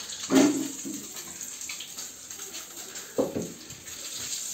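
Water running from a kitchen tap in a steady hiss, with two knocks of cookware: a loud one just after the start and another about three seconds in.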